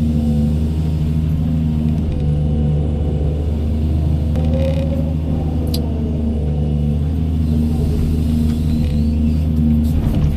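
Doosan 210W wheeled excavator's diesel engine running steadily under working load, its pitch shifting a little as the hydraulics work the arm and bucket. A sharp click sounds about halfway through.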